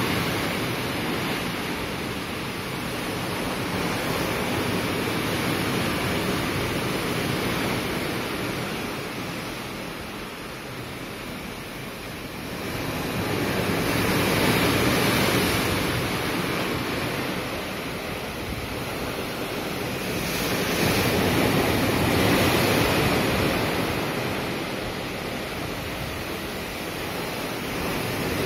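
Rough sea churning and rushing along a moving ship's hull: a loud, steady rush of breaking white water that swells and eases every several seconds, with wind on the microphone.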